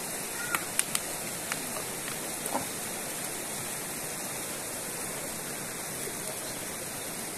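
Shallow mountain river rushing steadily over rocks and small rapids. A few short, sharp knocks sound in the first three seconds.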